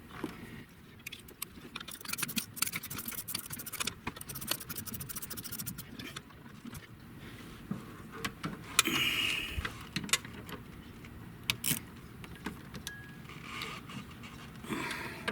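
Hand tools clicking and clinking on metal as a bolt is run in under the dash, with a burst of rapid ratchet-like clicking about two to five seconds in and scattered clicks after.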